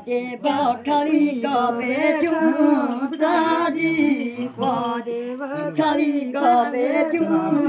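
Women's voices singing a song without instruments, in long held, wavering notes.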